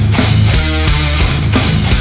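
Heavy rock music with distorted electric guitar and a steady beat.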